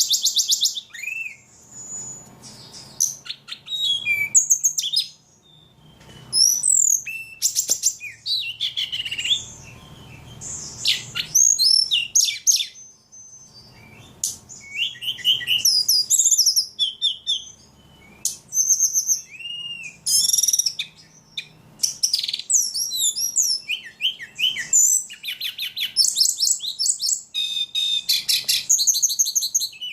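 Ledekan songbird singing almost without pause: quick, high-pitched chirps, rapid trills and sweeping notes, one varied phrase after another with only short breaks.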